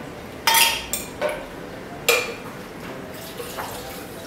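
Three sharp clinks of a glass jar and a metal cocktail shaker being handled on a wooden table, about half a second, one second and two seconds in, followed by quieter handling.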